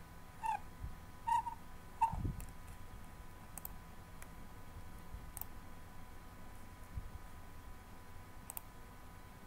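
Computer mouse clicking a few times, soft and spaced out. Near the start come three short squeaky chirps a little under a second apart, the loudest sounds, with a dull thump just after the third.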